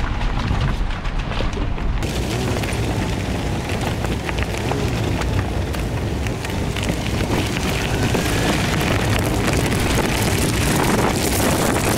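Tyres of a Suzuki 4WD crunching and crackling over a loose gravel and stone track, with a steady low rumble under it. The stone crackle gets brighter about two seconds in.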